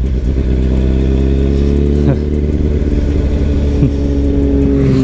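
Kawasaki Ninja ZX-10R's inline-four engine running at a steady pitch while riding, under heavy wind rush on the microphone. The engine note breaks briefly about two seconds in, then holds steady again.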